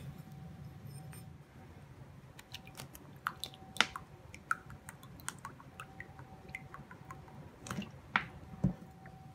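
Sunflower oil being poured from a plastic bottle into a small glass tumbler: scattered light clicks and ticks of the bottle and glass, with a few louder clicks and a soft knock near the end.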